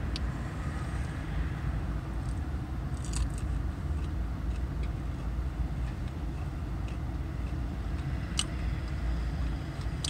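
Steady low vehicle rumble heard inside a parked car's cabin, with a few faint crisp clicks of someone eating crunchy fried chicken tenders.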